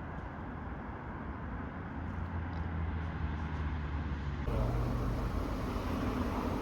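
Street noise with a motor vehicle engine running as a steady low hum. The sound changes abruptly about four and a half seconds in.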